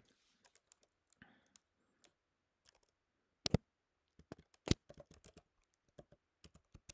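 Scattered clicks of a computer keyboard and mouse as a few letters are typed; two sharper clicks stand out near the middle.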